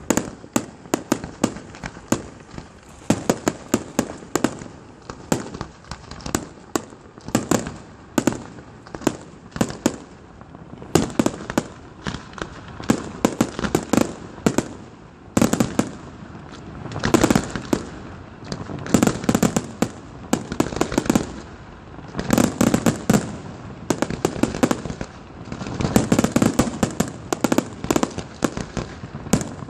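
Fireworks display: aerial shells bursting in a rapid, continuous string of bangs and crackles, coming in denser waves every few seconds.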